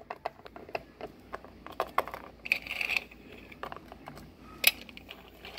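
Small plastic toy figurines being picked up and set down by hand on a wooden surface: a scatter of light clicks and taps, with one sharper knock about four and a half seconds in.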